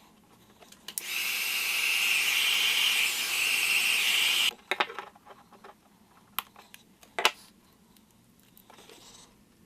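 A hand-held power tool runs steadily for about three and a half seconds, starting about a second in and cutting off suddenly, followed by a few sharp handling clicks.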